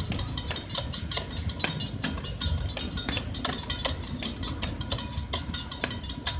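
Passenger coaches of a train rolling past at low speed: a steady low rumble with frequent sharp clicks from the running gear.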